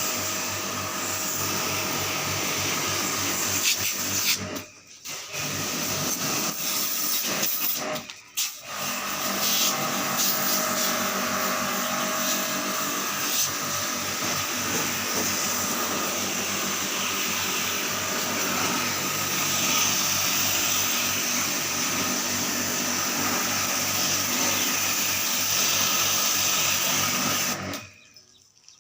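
Electric motor of an AC-cleaning machine running steadily with a strong hiss. It cuts out briefly twice in the first third and stops near the end.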